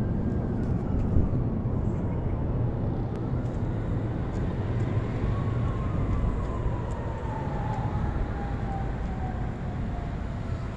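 Steady low rumble of passing traffic, with a faint whine that slowly falls in pitch from about four to ten seconds in.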